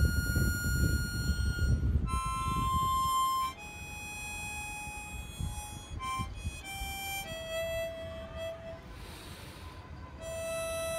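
Harmonica played with cupped hands: a slow melody of held single notes, each lasting a second or more. A low rumble sits under the first few seconds, and a short breathy rush comes about nine seconds in.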